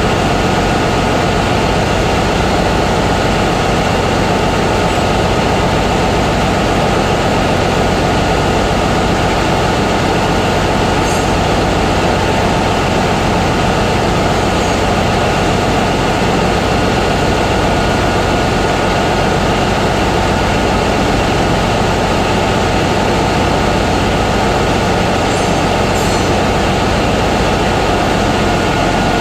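Steady, loud drone of running engine-room machinery, unbroken throughout, with a few faint metallic ticks about a third of the way in and near the end.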